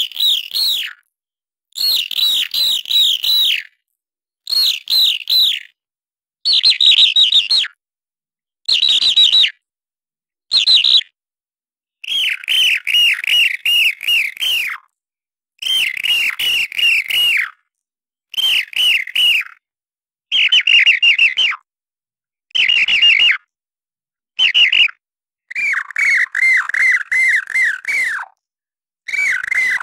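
Imitation bird chirping made from a human voice squeaking "eee eee eee", pitch-shifted up and partly sped up: short runs of rapid repeated squeaks separated by dead silence. About halfway through the runs drop lower in pitch, and the last ones are lower still, meant as different birds.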